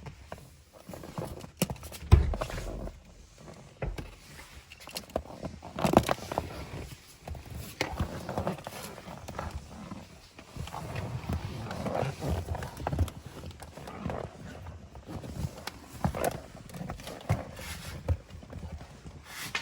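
Irregular knocks, clicks and rustling of hands routing LED light-strip wiring around a car's interior, with a louder thump about two seconds in and another about six seconds in.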